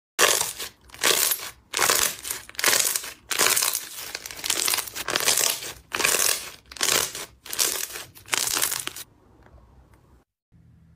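Clear slime stretched, folded and squeezed in the hands, crackling and crinkling in a quick string of short bursts, a bit more than one a second, which stop about nine seconds in.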